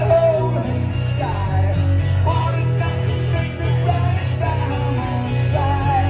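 Live rock song played on acoustic guitar and bass guitar, with a man singing over them.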